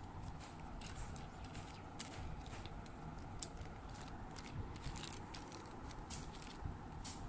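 Plastic toys clicking and clattering as a hand rummages through a pile of toy vehicles and building blocks, in many short irregular clicks over a low handling rumble.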